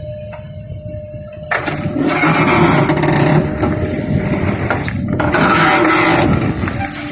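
Backhoe loader's diesel engine running low, then about a second and a half in it goes up to a much louder, harder-working sound that holds, with brief dips.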